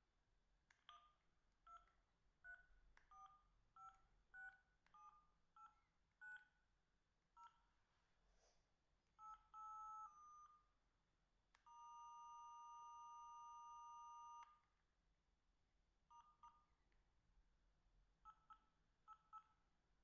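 Samsung SH-710 mobile phone keypad tones as its menus are stepped through: quiet short two-note beeps, each with a button click, about one or two a second. Partway through comes a steady two-note tone held for about three seconds, followed by a few more quick key beeps near the end.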